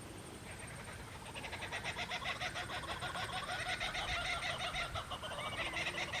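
Chickens clucking: a fast run of short calls that starts about a second in and grows louder.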